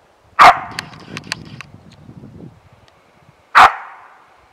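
A dog barking twice, single sharp barks about three seconds apart, each trailing off in a fading echo.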